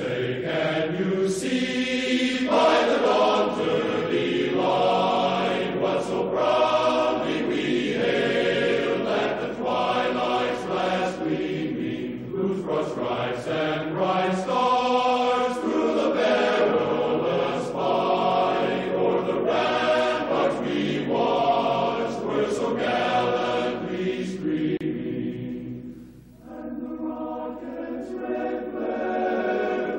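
A choir singing slowly in long held phrases, falling away briefly near the end before coming back in.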